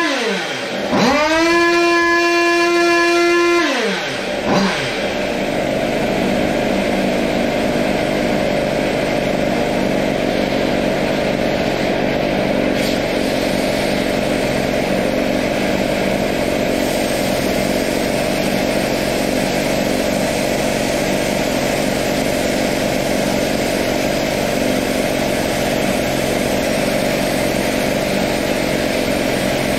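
Water-cooled Zenoah G300PUM two-stroke on a Goped Sport free-revving with no load. It falls from a high rev, is snapped back up about a second in and held at a high, steady pitch for about two and a half seconds, then drops back and settles into a steady idle.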